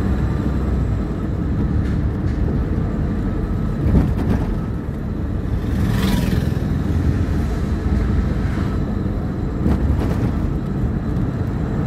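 Steady engine and road rumble of a moving vehicle. A short knock comes about four seconds in, and a brief whoosh about six seconds in as an oncoming car goes by.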